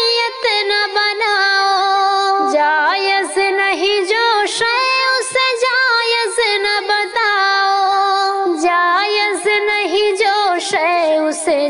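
A high voice singing an Islamic nazm, holding and ornamenting a melody with long notes and many quick pitch turns.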